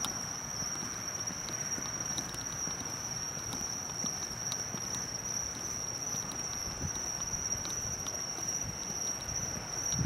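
A steady high-pitched insect chorus, with soft footsteps on pavement.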